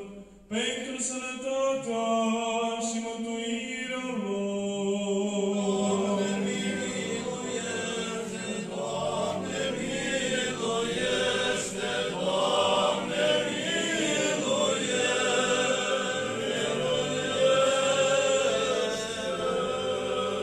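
Orthodox liturgical chant sung unaccompanied by a small group of voices. One voice carries the line at first, and more voices join about four seconds in over a held low note.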